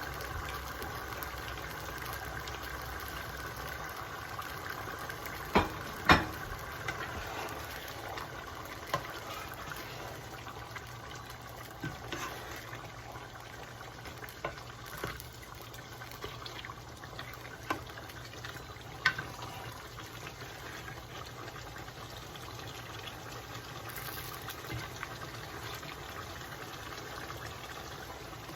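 Pot of collard greens cooking down in broth on the stove, bubbling and sizzling steadily, with a few sharp clinks scattered through it.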